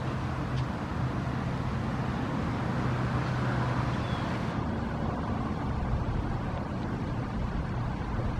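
Road traffic noise with a steady low engine hum that fades out about halfway through; no siren is sounding.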